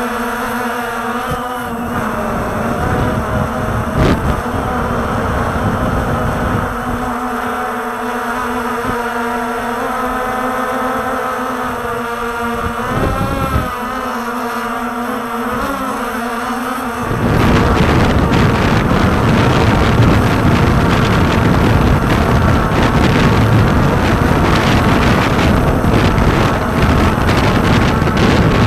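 Walkera TALI H500 hexacopter's electric motors and propellers in flight, heard from its onboard camera: a steady multi-tone whine with small shifts in pitch. About two thirds of the way through, loud wind buffeting on the microphone takes over.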